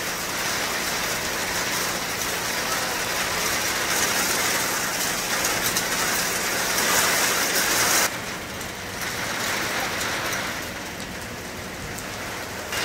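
Heavy rain falling, a steady hiss. About eight seconds in it drops abruptly to a quieter, lighter rain.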